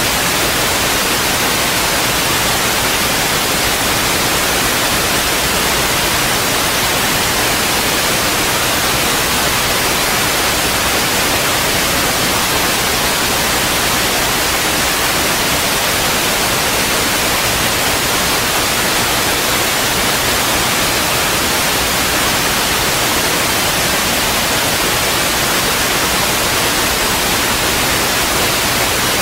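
Loud, steady static hiss, even from low to high pitch and unchanging throughout, with no other sound standing out of it.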